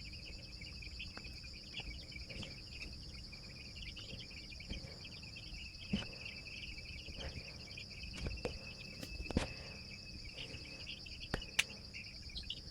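Steady high-pitched chirring of crickets, faint, with a few small clicks and taps as the vaccine vial and syringe are handled.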